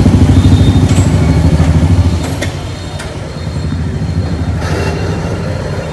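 A motor vehicle's engine running with a fast, even low throb. It is loud for about two seconds, then drops to a quieter rumble. A few light clicks come just after it drops.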